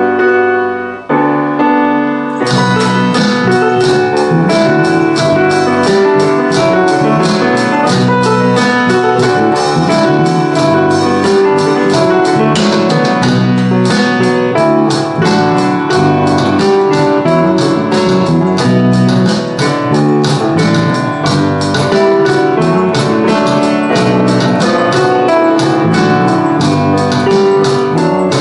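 Piano, bass and drums playing a rock song arrangement. Piano chords open alone, and the drums and bass come in with a steady beat about two seconds in.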